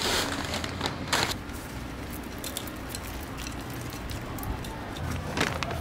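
Rustling and gritty handling noise of a houseplant being repotted: a plastic potting-soil bag crinkling and soil and terracotta pots handled on concrete, with louder rustles at the start, about a second in and near the end.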